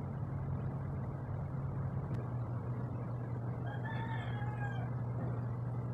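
Steady low hum with a soft hiss of background noise, and about halfway through a faint, drawn-out pitched call lasting about a second and a half.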